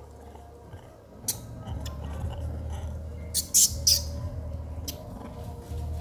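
A few short, sharp, high chirps from an animal, clustered near the middle, over a steady low rumble.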